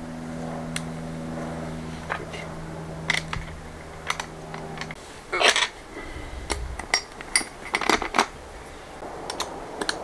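Light scattered clicks and taps of a folding e-bike's saddle and seatpost clamp being handled and adjusted, with a louder clatter about five and a half seconds in. A low steady hum underneath stops about halfway through.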